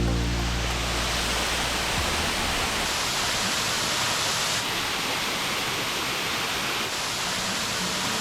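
Waterfall pouring into a pool: a steady, even rush of falling water. Background music fades out in the first second or two.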